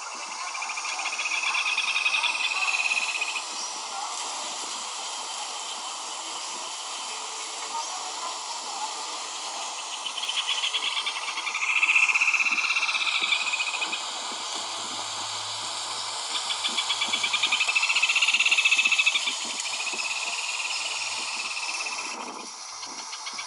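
Rufous hornero singing: four bouts of rapid, evenly pulsed trilled notes, each lasting two to three seconds and rising in loudness, over a steady background hiss.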